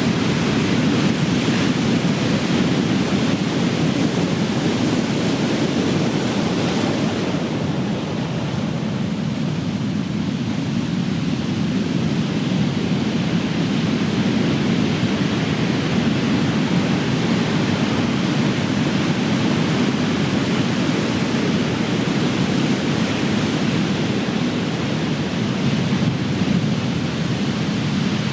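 Big ocean waves breaking on the shore: a steady rush of surf that eases a little about eight seconds in, then builds again.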